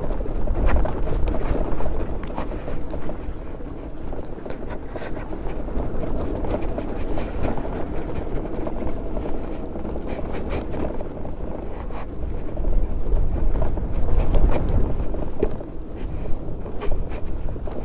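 Scooter ridden slowly down a steep, rocky dirt track: tyres crunching over loose stones and the machine rattling over bumps, with scattered sharp ticks. Wind rumbles on the microphone and swells for a couple of seconds past the middle.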